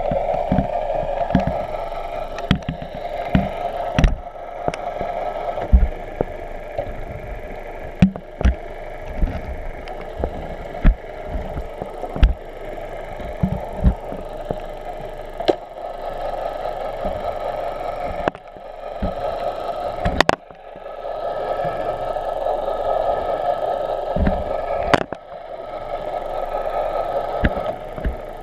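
Underwater camera recording: a steady muffled rush of water with faint steady tones above it, broken by many irregular sharp knocks and clunks of the camera housing and its line.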